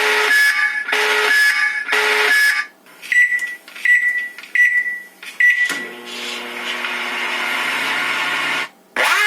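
Electronic sound effects from a sound-board app played through a homemade amplifier and speakers. First come three short tonal blasts, then four quick beeps, then a steady electronic tone of several notes held for about three seconds, and a rising sweep right at the end.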